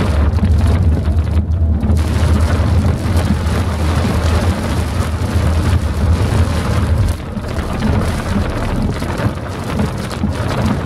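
Heavy rain hitting a car's windscreen, a dense steady hiss, over a deep low rumble that drops off abruptly about seven seconds in.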